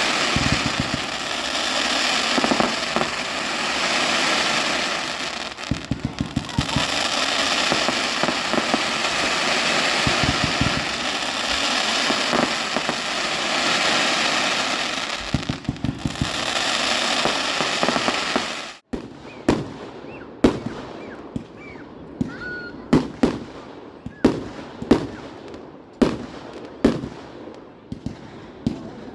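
Fireworks going off. For most of the first eighteen seconds there is dense crackling and popping with frequent bangs. After an abrupt cut, there is a quick series of separate sharp bangs, each with a short ringing tail.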